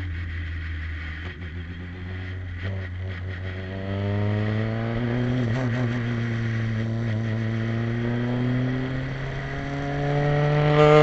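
Formula 3 car's engine heard from the onboard camera, pulling at low revs in second gear. The revs climb about four seconds in, hold steady, then rise again near the end as the car picks up speed.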